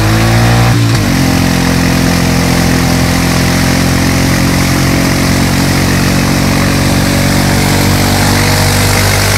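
ATV (quad) engine revving hard: the pitch rises and falls within the first second, then holds steady at high revs while the quad sits bogged down in deep mud.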